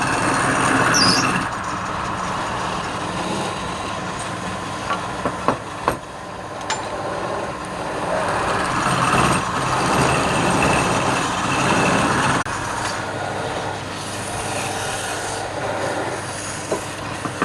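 Wood lathe running while a turning tool cuts the spinning wood: a steady scraping, swelling and easing every few seconds, with a few sharp clicks in the middle.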